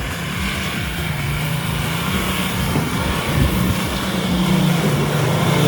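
SUV engine working under load while ploughing through deep snow, its pitch rising and falling as the throttle is worked, and growing louder.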